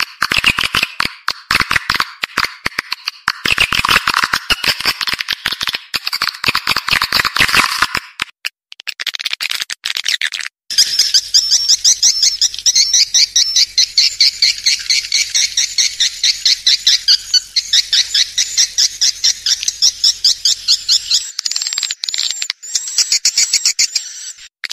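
Swiftlet lure call: dense, rapid high-pitched chirping and twittering of swiftlets, the kind of recording played to draw the birds into a nesting house. After a short lull about eight seconds in, it becomes a fast, even string of high chirps, with a few separate arched chirps near the end.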